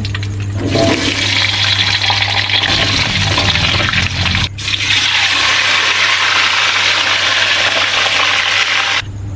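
Hot oil in a wok sizzling loudly as wet cut vegetables and then cubes of tofu are dropped in to fry, with a steady low hum underneath. The sizzle breaks off briefly about halfway and stops abruptly near the end.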